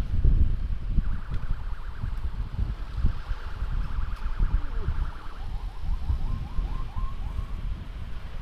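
Wind rumbling on the microphone of a moving vehicle, with a faint electronic siren behind it. The siren gives a steady buzzing tone for a few seconds, then a quick run of short rising chirps.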